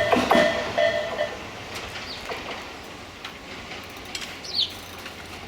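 A Japanese level-crossing warning bell rings its repeating electronic ding over the last wheel knocks of a passing train. The bell cuts off a little over a second in and the train noise fades, leaving a quieter background with a short falling bird chirp near the end.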